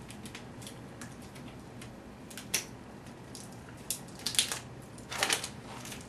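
Light plastic clicks and crinkles of a small plastic shim being fitted by hand onto a lock's Velcro-backed catch cup, a few scattered snaps with louder ones about two and a half, four and a half and five seconds in.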